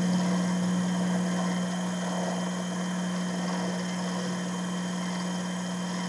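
Shop-built minimill running with a steady low hum from its variable-speed motor and belt-driven TAIG headstock spindle, as a 4-flute 3/8-inch end mill takes a light finishing pass across aluminium.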